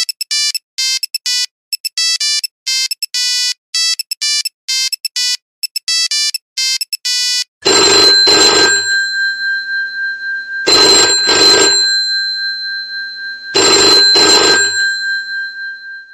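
Monophonic mobile-phone ringtone: a quick melody of short electronic beeps. About seven and a half seconds in it gives way to a telephone's mechanical bell ringing in doubles, three ring-rings about three seconds apart, the bell tone hanging on between them.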